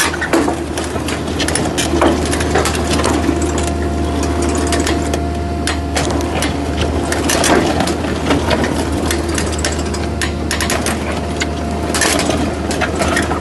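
Mini hydraulic piling rig drilling into concrete: its engine runs steadily under dense, irregular crunching and knocking from the drilling tool grinding through the concrete.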